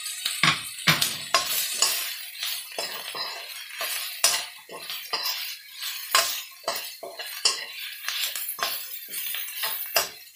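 Metal spoon stirring and scraping food around a wok in irregular strokes with light clinks, over the sizzle of stir-frying.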